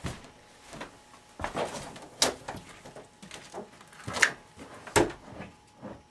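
Several sharp knocks and clunks at irregular intervals, the loudest two coming close together near the end.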